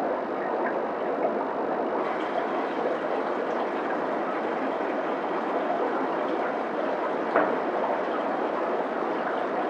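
Steady rushing and bubbling of aquarium aeration and water in a tank of angelfish, with one short click about seven seconds in.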